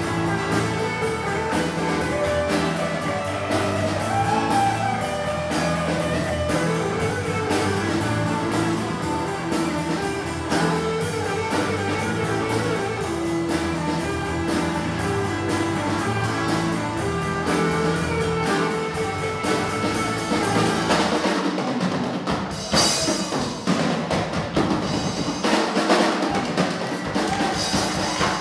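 Live rock band playing, with drum kit, electric guitar and bass. About 21 seconds in the steady bass and chords stop, leaving drum hits and a noisier wash of sound.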